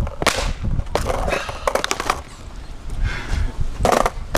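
Skateboard clacking on asphalt under a rider's feet: a few sharp knocks of the deck and wheels, the loudest one near the end.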